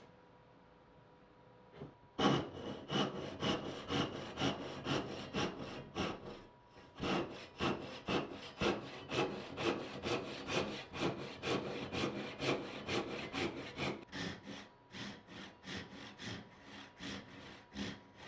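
Hand saw cutting wood in even back-and-forth strokes, about two a second. The sawing starts about two seconds in and pauses briefly midway.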